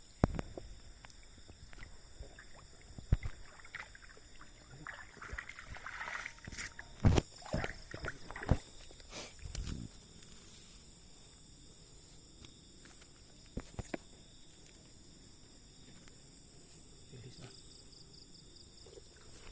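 Night insects trilling steadily on several high pitches, with a handful of sharp knocks and some rustling in the middle.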